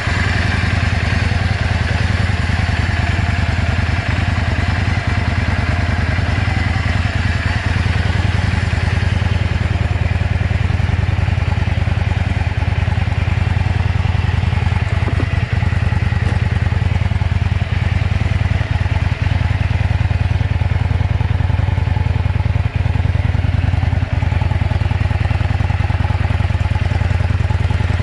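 Yamaha Drag Star 400 Classic's air-cooled V-twin engine idling steadily, with no abnormal noises.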